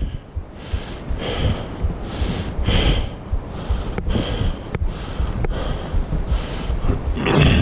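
A hiker's footsteps on a dirt trail, about two a second, over a low rumble of wind and handling noise on a body-worn camera.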